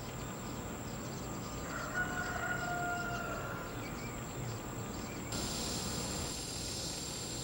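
A rooster crowing once, a call of about two seconds starting near two seconds in, over a steady high insect drone. Just after five seconds a louder high insect buzz sets in abruptly.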